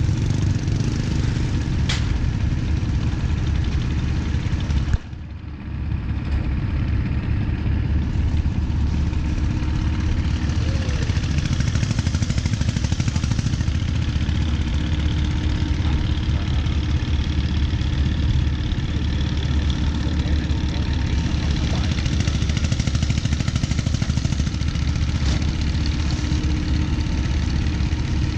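A boat engine running steadily at idle, with a brief drop in level about five seconds in.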